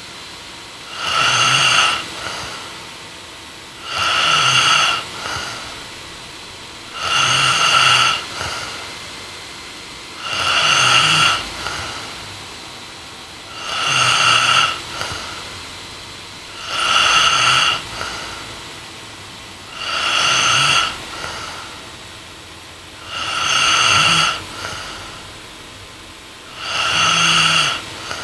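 A woman snoring in her sleep, with a regular snore about every three seconds, nine in all. Each snore lasts about a second and is followed by a softer breath.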